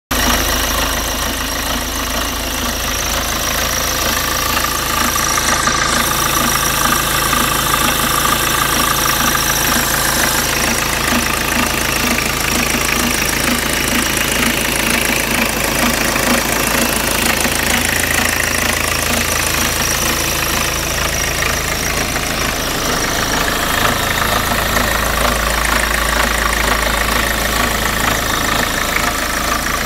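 BMW E36 318tds four-cylinder turbodiesel engine running steadily with a strange regular noise from the engine. The noise seems to repeat at about half the engine's speed.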